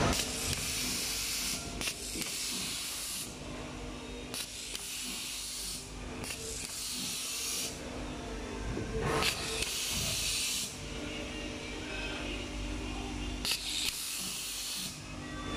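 Automatic nylon cable tie machine at work: about six bursts of compressed-air hiss, each a second or so long, as ties are blown through the feed tube to the handheld tie gun, with sharp clicks as the gun fastens and cuts ties. A steady low hum from the machine runs underneath.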